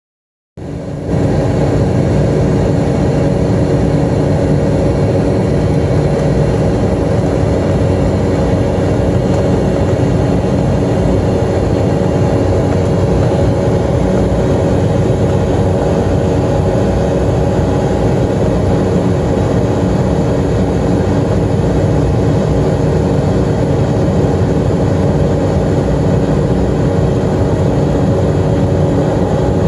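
Airliner cabin noise: the jet engines and airflow make a loud, steady roar with a constant hum, heard from inside the cabin as the plane climbs out after takeoff. It comes in about half a second in.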